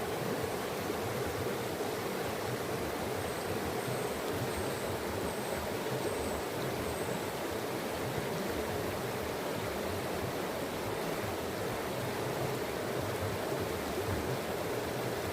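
Steady rushing of flowing water. About three seconds in, a bird gives a faint series of about six short, high, thin notes, evenly spaced over some four seconds.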